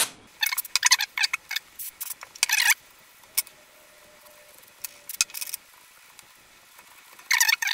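A toothbrush scrubbing a small slide switch wet with carburetor cleaner: a quick run of short brushing strokes for the first few seconds, a few faint clicks in the middle, then more brushing strokes near the end.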